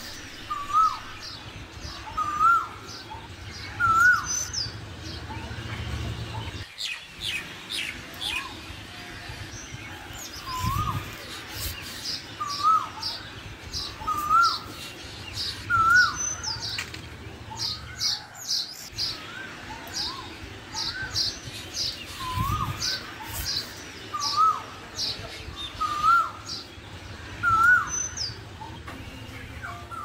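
Asian koel calling: a two-part 'ku-oo' note repeated about once a second, each note pitched a little higher than the one before, the rising series starting over several times. Smaller birds chirp faintly at a much higher pitch.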